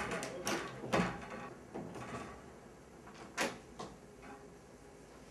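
A room door being opened, with several sharp knocks and clatters: about half a second in, about a second in, and again about three and a half seconds in.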